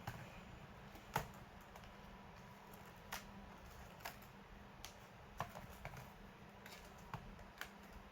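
Scattered light clicks and taps from hands working on a laptop's parts, irregular and about a dozen in all, the sharpest about a second in, over a faint steady low hum.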